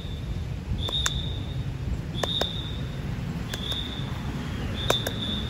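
Firefighter's whistle giving short, high blasts, about one every second and a half, to signal the driver in a garage-backing drill. Sharp handclaps land in time with each blast, over a low rumble.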